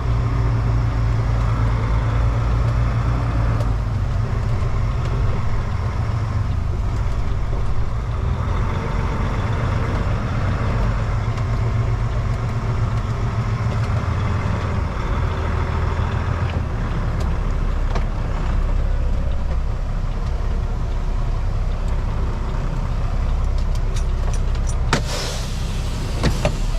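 Heavy diesel engine running steadily with a low, even drone. A few sharp clicks come near the end.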